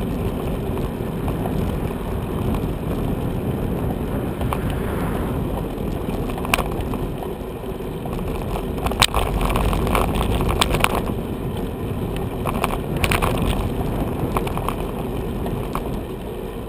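Bicycle rolling over a rough, broken road surface: a steady rumble of tyres and wind on the camera's microphone, with sharp knocks and rattles from bumps, several of them between about six and thirteen seconds in.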